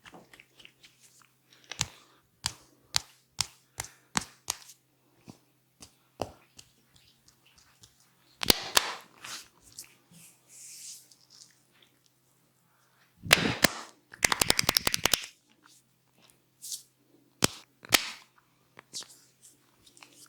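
Sharp slaps and cracks of a barber's percussive head and neck massage. Single strikes come about twice a second at first, then a louder cluster about eight seconds in, a quick volley of a dozen or so strikes around thirteen to fifteen seconds in, and a few more near the end.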